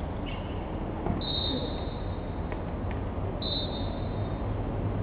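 Two short, high whistle blasts about two seconds apart, typical of a referee's whistle, over steady background noise.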